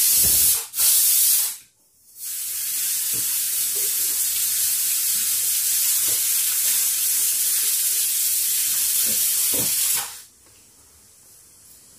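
A loud, steady, high-pitched hiss that cuts out briefly about two seconds in and falls away about ten seconds in. Faint ticks from eating sound underneath it.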